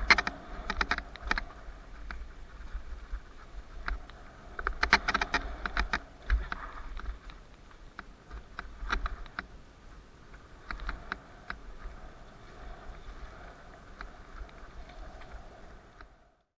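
Mountain bike rattling and clicking over a bumpy dirt trail, heard from a camera the rider is wearing, with wind rumbling on the microphone. The clatter comes in clusters, heaviest at the start and again around five seconds in, with smaller ones later, and the sound cuts off just before the end.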